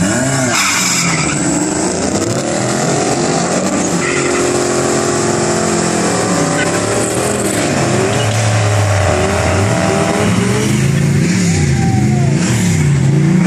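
Turbocharged 1984 Nissan 720 pickup pulling away hard down a drag strip, with a brief tyre squeal near the start. The engine's pitch climbs and drops back at each gear change. It follows a low launch at about 2500 rpm that the owner calls a bad launch.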